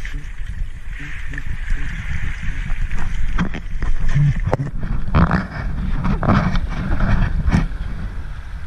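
Water sloshing and splashing as a diver surfaces, with a steady low churning rumble and several sharp knocks and splashes in the second half.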